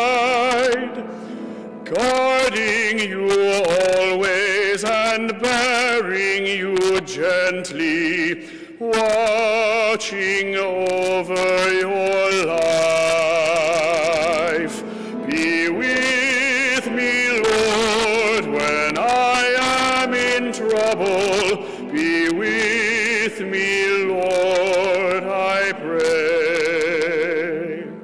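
A male cantor sings the responsorial psalm solo, in long held phrases with vibrato and brief breaths between them.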